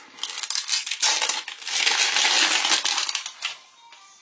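Clear plastic surprise-egg capsule handled and shaken, with small plastic toys rattling and clattering inside. The clatter is loud and dense and stops about three and a half seconds in.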